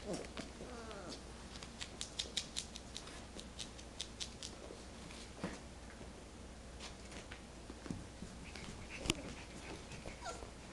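Puppies scuffling about: many small sharp clicks and scrapes, with a short whimper in the first second and another brief whine near the end.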